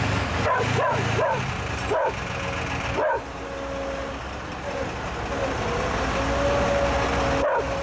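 Flatbed tow truck's engine running steadily while its winch drags a pickup up the tilted bed, with a steady whine from the winching from about three seconds in. A dog barks several times in the first three seconds and once more near the end.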